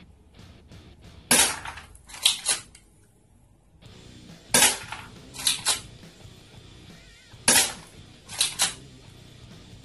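Tokyo Marui Glock 17L spring airsoft pistol being fired, three sharp shots about three seconds apart. Each shot is followed about a second later by a quick pair of clicks from the slide being racked to cock the spring for the next shot.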